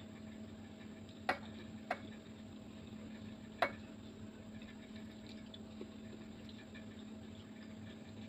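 A metal fork clinking sharply against a ceramic bowl three times in the first four seconds, over a steady low hum.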